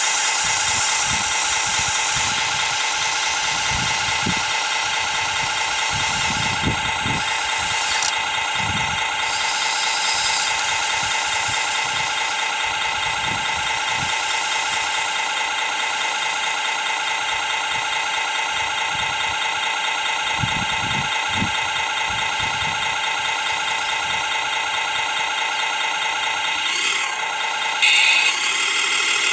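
Radio-controlled model excavator working: a steady mechanical drone with rattling and scattered knocks as it swings its bucket between a muddy pit and a model dump truck. There is a brief louder change a second or so before the end.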